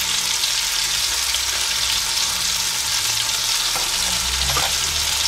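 Halved cherry tomatoes sizzling in hot fat in a cast-iron Dutch oven, a steady hiss, with a low steady hum underneath.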